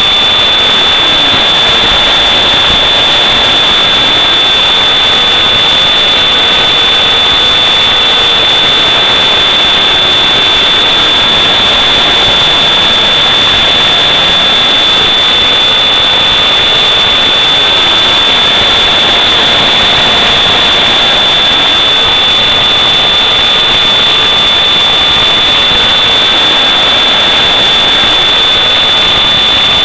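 Motor and propeller of an FPV model aircraft, heard in flight through its onboard camera's microphone: a loud, steady whine over rushing wind noise, with a high steady tone and fainter pitches that waver slowly as the aircraft flies.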